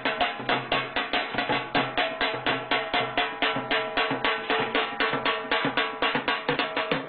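Music with a fast, even drum beat and a steady melodic line underneath.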